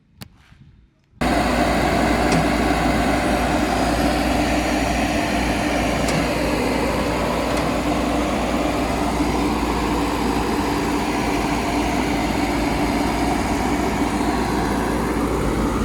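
An engine running steadily, coming in suddenly about a second in and holding at an even level.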